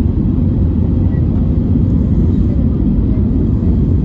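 Steady low rumble inside the cabin of an Airbus A320neo on approach to land: airflow and the CFM LEAP-1A engines, heard from a window seat over the wing.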